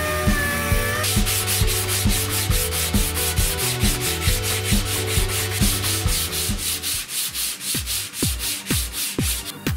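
Electronic background music with a fast, steady beat: deep kick drums under a bass line and a quick, even, hissing rhythm that cuts off near the end.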